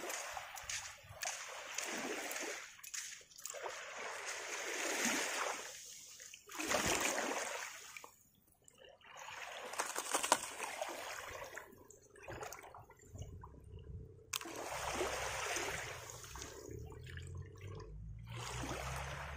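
Shallow seawater splashing and lapping at the shoreline as hands scoop in the water for live bait, dropping out briefly about eight seconds in.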